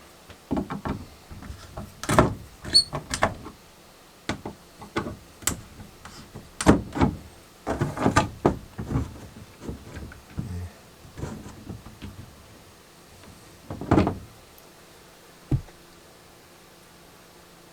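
Irregular clicks, knocks and scrapes of hands working at an RV wall outlet, with a short low thud near the end.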